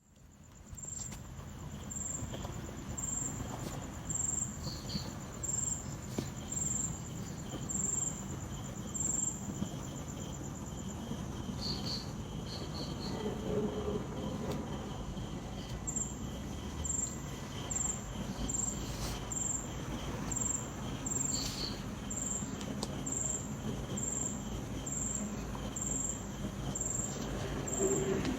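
Crickets chirping in an even rhythm of about one high chirp a second, pausing for a few seconds around the middle. Beneath them is a low, steady hiss of gentle night wind.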